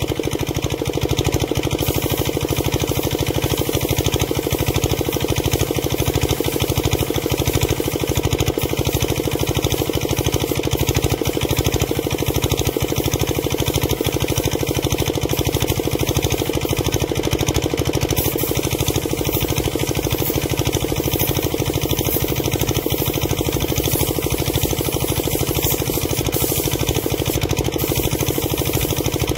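Air compressor running steadily with a rapid, even pulse, under the hiss of a compressed-air spray gun spraying paint.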